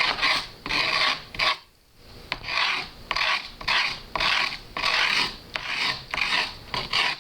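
Skateboard grip tape being rubbed and scraped back and forth along the edge of the deck, a gritty sandpaper rasp in short strokes about two a second, with a brief pause about one and a half seconds in. This scores the tape's edge so it can be trimmed with a razor blade.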